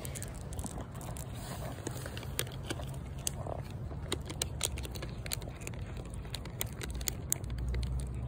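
Domestic cat chewing dry kibble: irregular sharp crunches several times a second, over a steady low rumble.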